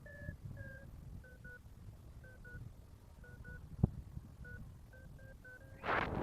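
A paragliding variometer beeping: short, irregularly spaced electronic beeps whose pitch steps down slightly in the first couple of seconds. A single sharp click comes about four seconds in, and a loud gust of wind rushes over the microphone near the end.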